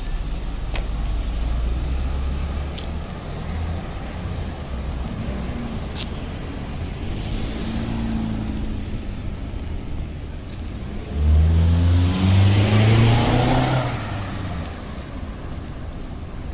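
City street traffic: a low engine rumble, then about eleven seconds in a motor vehicle accelerates past, its engine pitch climbing in steps and its tyre and engine noise peaking before fading.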